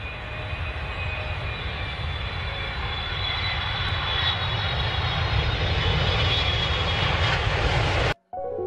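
Jet airliner engines: a steady low rumble with a high fan whine, growing louder, then cut off abruptly about eight seconds in.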